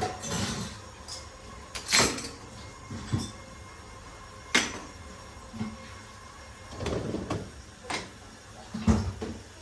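Scattered clunks and knocks of household things being handled, about half a dozen spread over the stretch, the loudest about two seconds in and another near the end.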